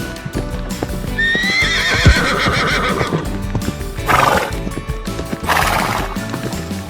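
A horse whinnying: one long neigh starting about a second in, then two short breathy bursts, over background music.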